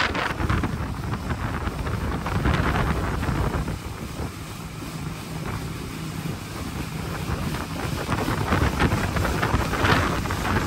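Small open motorboat running at speed: a steady engine hum under wind buffeting the microphone and water rushing past the hull.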